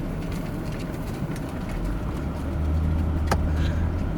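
Car engine running at low speed, a steady low rumble that grows louder about two seconds in. A single sharp click sounds near the end.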